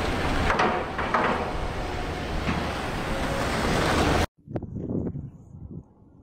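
Strong wind in a snowstorm buffeting the microphone, a loud rushing noise with a heavy rumble that cuts off abruptly about four seconds in. After the cut come faint knocks and rustling.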